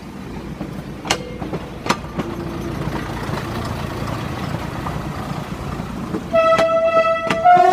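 Diesel railcar's engine running with a low, steady rumble, with two sharp clicks in the first two seconds. Near the end it sounds its horn: a loud blast, then a second blast at a different pitch.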